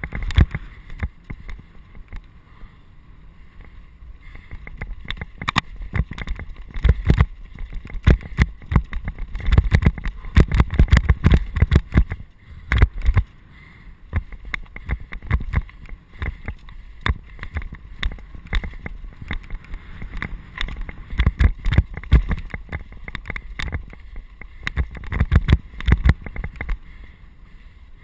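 Mountain bike clattering and rattling over a rocky, gravelly trail: many quick knocks and jolts in uneven bursts over a low rumble, with a brief lull about halfway through.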